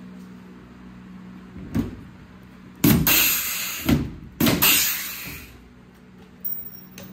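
A pneumatic rivet gun fires twice, each shot a sharp snap followed by about a second of fading air hiss, setting rivets through the race car's door panel. There is a lighter knock before the first shot and a small click near the end.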